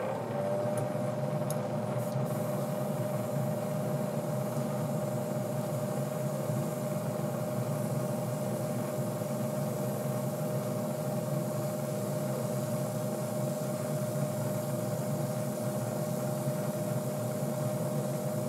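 Steady electric motor hum with one held tone under a constant air hiss: the spray booth's extractor fan and the air supply of an Iwata TR2 airbrush running while the airbrush sprays paint.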